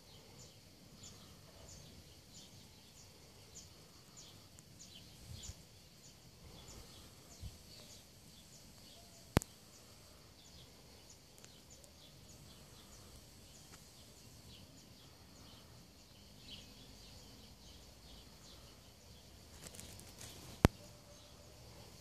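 Faint outdoor background with a high chirp repeated over and over, about twice a second, and two sharp clicks, one about nine seconds in and one near the end.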